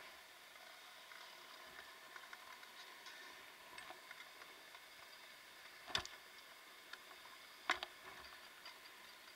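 Faint, steady background hiss with scattered light clicks, and two sharper clicks about six and nearly eight seconds in.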